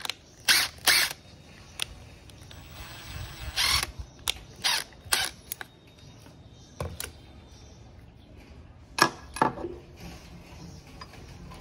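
Short metallic clicks and knocks as a copper-pipe flaring tool, its drive adapter and a cordless driver are handled and set down on a tiled table, scattered irregularly with the loudest knocks about a second in and again around nine seconds.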